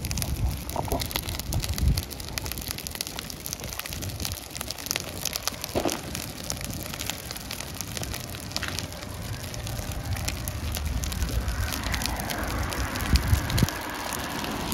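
Large open fire crackling and popping steadily, many small sharp cracks over a low rumble.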